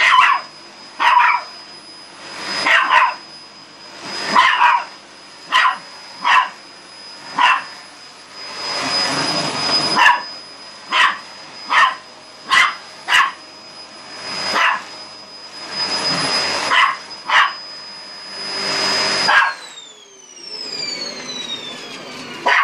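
Maltese dog barking repeatedly in sharp single barks at a running vacuum cleaner, whose motor keeps up a steady high whine with swells of suction noise. Near the end the vacuum is switched off and its whine falls away in pitch as the motor winds down.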